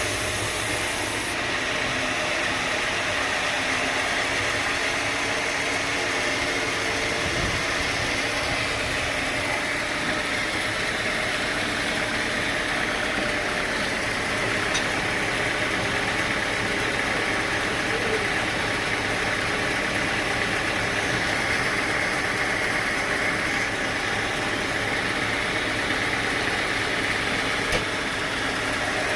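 Sawmill machinery running steadily: a continuous engine drone with even, unchanging mechanical noise.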